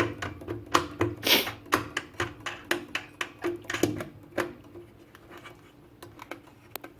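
Rapid small metal clicks and knocks, several a second, as hardware is worked by hand on the steel tool chest; they die away after about four and a half seconds.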